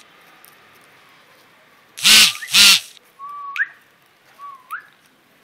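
Two loud, short, harsh calls half a second apart, then two short whistled notes, each holding a moment and then sliding sharply up in pitch, the kind of whistle used to call puppies.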